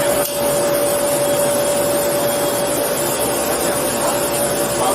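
Steady machine hum and hiss with one constant whine held at the same pitch throughout.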